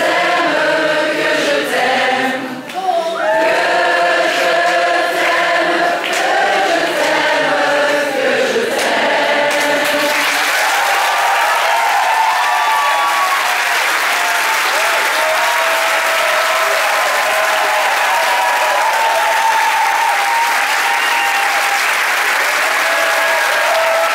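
A concert audience singing along in chorus to a piano song, many voices together, for about ten seconds. The singing gives way to loud, sustained applause with cheering voices.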